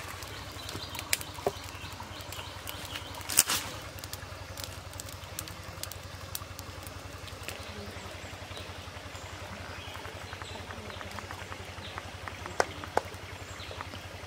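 Wood fire crackling and popping under a clay cooking pot, with scattered sharp snaps, the loudest about three and a half seconds in and two more near the end, over a steady low rumble.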